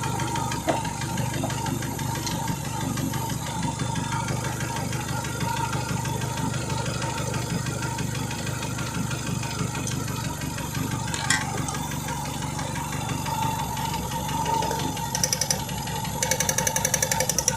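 Renault Mégane II engine idling with a misfire and a slight shake, which the owner puts down to the spark plugs. A rapid, even ticking comes in near the end.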